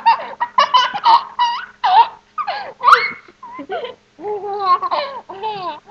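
Young child laughing and squealing in quick bursts, then a few longer sliding calls over the last two seconds.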